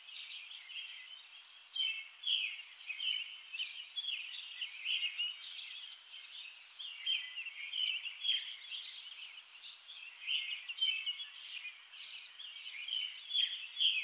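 Small birds chirping, many short high-pitched calls a second in an irregular, busy chorus.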